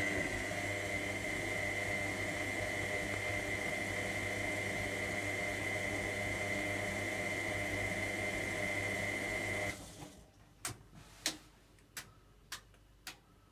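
Electra AWF683 washing machine running water through itself, with a steady electrical hum and a high whine over a wash of water noise. It cuts off abruptly after about ten seconds and is followed by a few light clicks.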